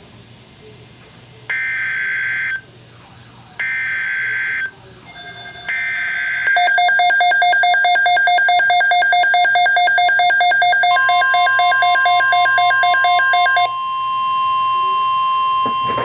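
Midland NOAA weather radio sounding an alert for a Severe Thunderstorm Watch. Three short warbling data bursts, the SAME header that codes the alert, come first. Then a loud, rapid pulsing alarm beep runs for about seven seconds, and a long steady attention tone begins partway through and continues after the beeping stops.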